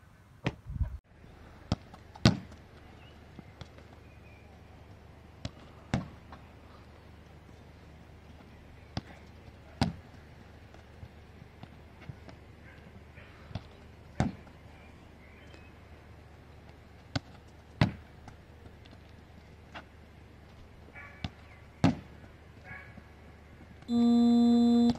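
Sharp single knocks, one every two to four seconds, over a low steady hum. Near the end comes a loud, buzzy electronic-sounding tone lasting about a second.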